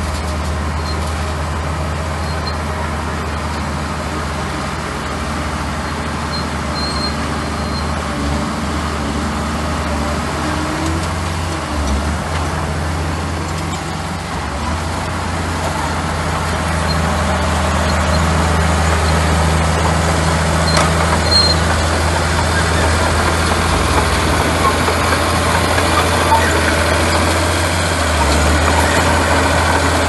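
Crawler bulldozer's diesel engine running steadily as it pushes a heavy load of soil and gravel, getting louder a little past the halfway point.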